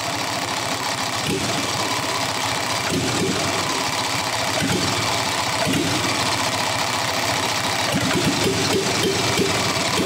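A petrol inline engine converted to diesel injection, turned over steadily by its starter motor while starting spray is fed into the intake. There are a few louder thumps along the way, but it does not catch and run.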